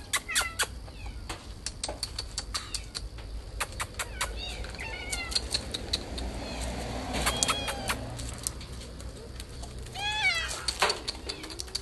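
Domestic cats meowing: a few crying meows around the middle and a louder one near the end, over many short, sharp clicks.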